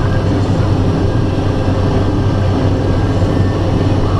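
Heavy engine running steadily, a constant low drone with a strong low hum and no change in speed.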